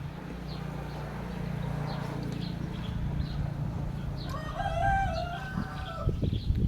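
An animal's long pitched call, held for a little over a second starting about four seconds in, over a steady low hum; a few low knocks follow near the end.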